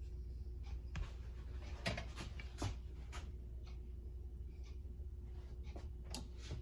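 Quiet room tone with a steady low hum and a few scattered light clicks and taps.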